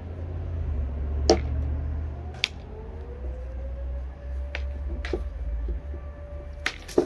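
Sword blows in sword-and-shield sparring: about six sharp strikes, the loudest about a second in, over a low steady rumble.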